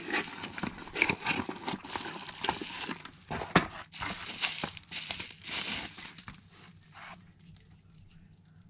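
Plastic packaging crinkling and crackling as battery packs are unwrapped by hand, in an irregular run of sharp crackles that stops about seven seconds in.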